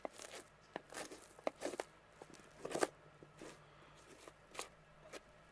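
Knife cutting and pulling meat and hide from a deer carcass: scattered short tearing and crunching sounds, a few louder ones around one second and three seconds in.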